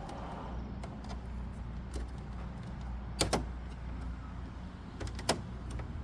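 Sharp plastic clicks and taps as plastic spoons are worked in behind an Audi grille emblem to pop its clips loose. The loudest is a quick double click about three seconds in, with two more near the end, over a low steady rumble.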